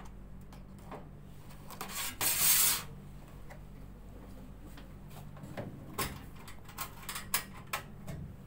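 Handling noises: a brief rustling hiss about two seconds in, the loudest sound, then a few small clicks and knocks. A steady low hum runs underneath.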